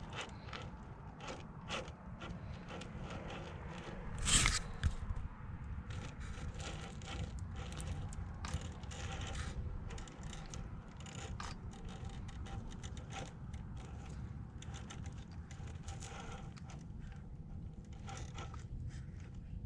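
Traxxas TRX-4 RC crawler with a brushed motor, its drivetrain gears working and its tyres scraping and clicking over the ground in many small bursts, with one louder scrape about four seconds in.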